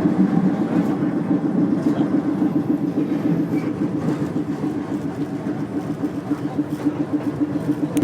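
Streetcar running along its track, heard from aboard: a steady rumbling hum that eases a little midway and builds again near the end.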